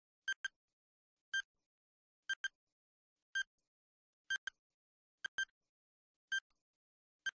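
Countdown timer beeps: a short electronic beep about once a second, some of them a quick double beep, with silence in between.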